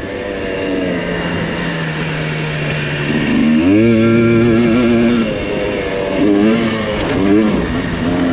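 Two-stroke dirt bike engine under changing throttle. It runs low and steady for a few seconds, revs up sharply about three and a half seconds in and holds, eases off near five seconds, then gives several short blips up and down.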